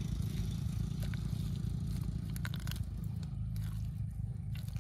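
Crunching and scraping of dry, cracked mud being dug into, with scattered short crackles mostly in the second half, over a steady low rumble.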